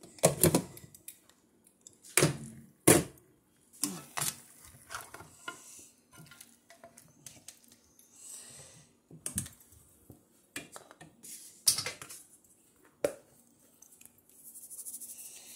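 Cookware being handled while chuck eye steak fries: about eight sharp clanks and knocks of a glass pan lid and metal utensils against the frying pans, with faint sizzling between them.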